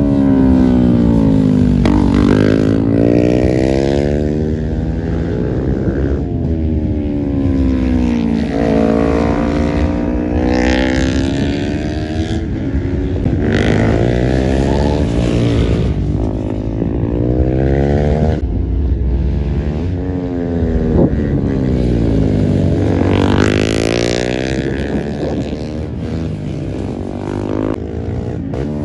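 Racing sport motorcycles passing at speed on a circuit, one after another. Their high-revving engines climb in pitch and then drop away as each bike goes by.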